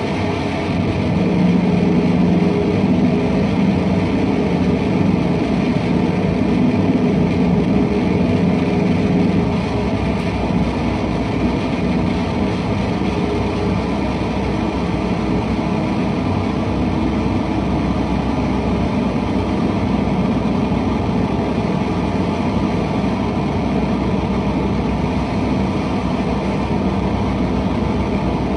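Experimental electronic drone from an electric guitar run through a double set of effects units: a dense, steady low rumble, a little louder in the first ten seconds.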